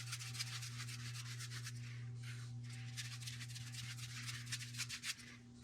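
A 2-inch paintbrush swishing primer onto a drywall patch in rapid, even back-and-forth strokes, the bristles rubbing on the wall.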